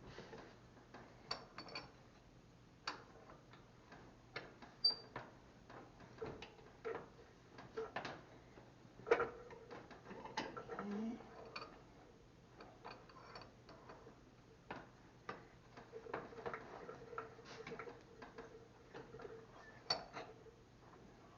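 Irregular light clicks and taps of small metal parts and hand tools being handled, with a few sharper knocks among them.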